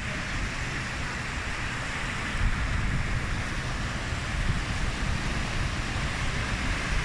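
Sea surf rushing steadily onto a beach, with wind buffeting the microphone in a low fluttering rumble.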